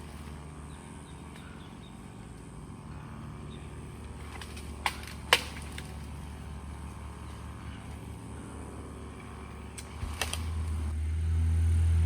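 A motor vehicle's engine running with a steady low hum. About five seconds in there are two sharp cracks. Near the end the engine gets clearly louder, as if it is being revved or put under load.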